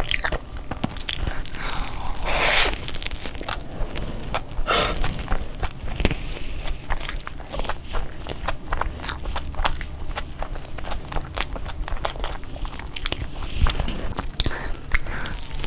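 Close-miked eating: a person biting into and chewing soft burger buns and chicken filling, with many small wet mouth clicks and smacks and a few brief louder rustles as the burger is pulled apart by hand.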